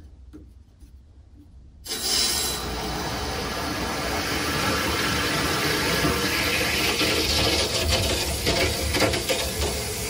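Water starts rushing suddenly about two seconds in as the bathtub tap is opened, then runs steadily through the plumbing and a newly fitted ecosmart tankless water heater. The water is purging air from the heater before its power is switched back on.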